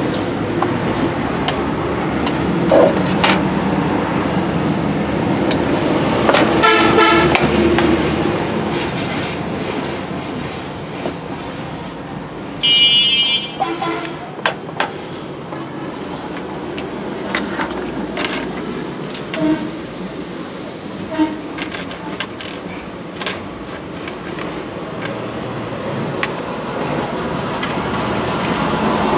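Street traffic noise with a vehicle horn honking about thirteen seconds in, and another shorter honk near seven seconds. Scattered small clicks and taps come from small electronic parts being handled on a workbench.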